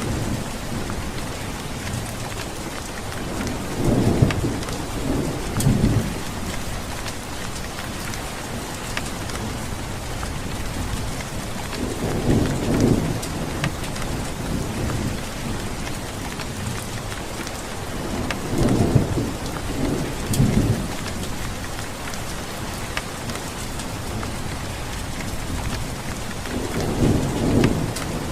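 Steady heavy rain hissing, with rolling thunder rumbling four times, each rumble lasting a couple of seconds.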